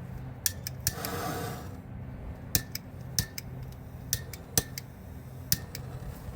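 Hand-held propane torch: sharp clicks of its igniter, repeated at irregular spacing, with a brief hiss of gas about a second in and a steady low hum underneath.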